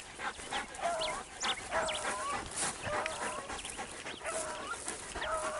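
Hunting beagles baying: a string of drawn-out, pitched yelps repeating every second or so, with short high chirps over them.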